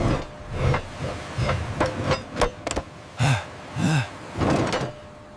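A string of irregular knocks and clanks, several a second, mixed with a few short low hums that rise and fall in pitch.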